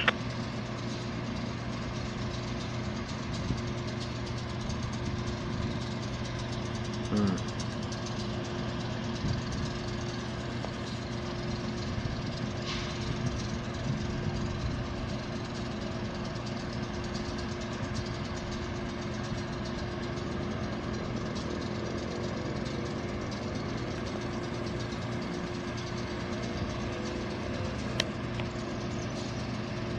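Diesel locomotives idling: a steady low engine hum that does not change, with a couple of short knocks.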